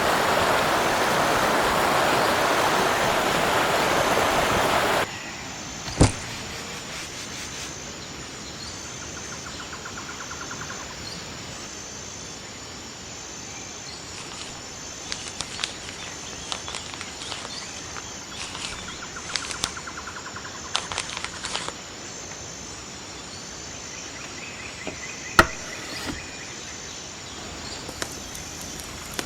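Rushing stream water that cuts off abruptly after about five seconds, giving way to quiet forest ambience with short insect trills, scattered faint clicks and two sharp knocks.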